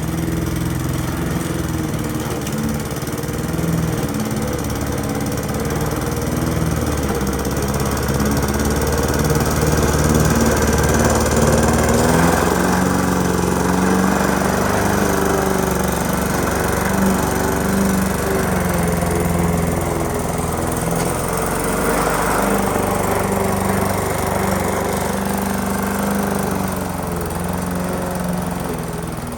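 Lawn mower engine running continuously while mowing, its note shifting now and then.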